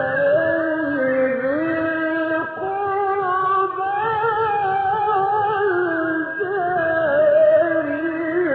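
A male Quran reciter's voice holding one long, unbroken melodic line in chanted tajweed recitation, the pitch winding up and down through ornamented turns.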